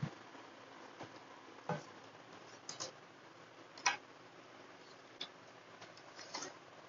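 Faint, scattered light clicks and taps, about eight at irregular intervals, the loudest a little before the middle, over a steady low hiss of room tone.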